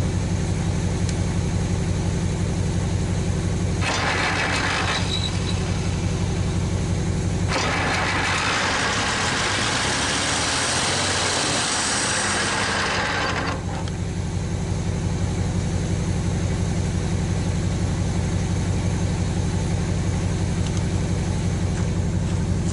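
Chrysler industrial 218 flathead six running steadily, just fired up for the first time after sitting for decades. A rushing noise joins it briefly about four seconds in, then more strongly from about seven to thirteen seconds.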